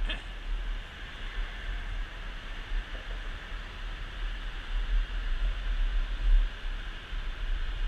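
Wind rushing over the microphone of a bicycle-mounted camera while riding, with uneven low buffeting gusts that grow stronger partway through over a steady hiss.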